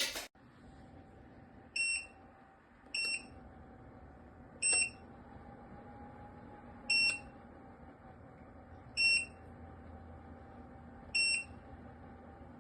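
Electric space heater's control panel beeping: six short, high beeps at uneven intervals, as buttons are pressed, over a steady hum. A sharp click at the very start.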